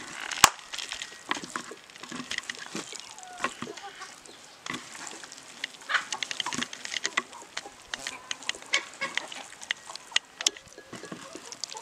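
A hand kneading raw quail in a thick, wet masala marinade on a steel plate: irregular squelching with many small clicks and scrapes of fingers and bones against the metal, and one sharp click about half a second in.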